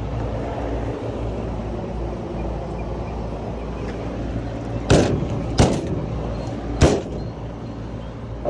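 A steady low mechanical hum, broken by three sharp knocks: one about five seconds in, another about half a second later, and a third about a second after that.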